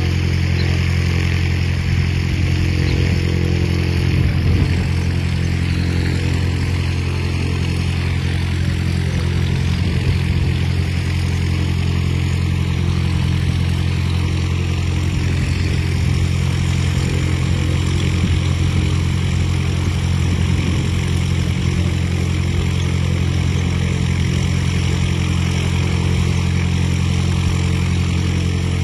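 An engine idling at a steady, unchanging speed, a constant low hum that runs on without a break.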